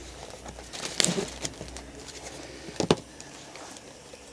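Cardboard box and packaging being opened and handled: rustling and scraping, with two sharper knocks, about one second in and near three seconds.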